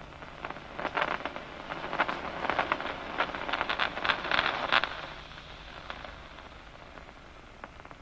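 Nerve impulses from a locust's DCMD neuron, amplified through a loudspeaker as a crackle of sharp clicks. A clump of spikes builds about a second in and is densest between two and five seconds, the sign of the eye being stimulated. It then thins out to a faint hiss.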